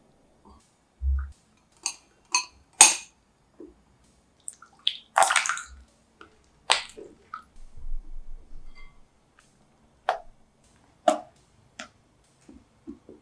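Silicone spatula mixing cream cheese in a glass bowl: scattered soft scrapes, squishes and light clicks against the glass. There is a low bump about a second in and a longer scrape about five seconds in.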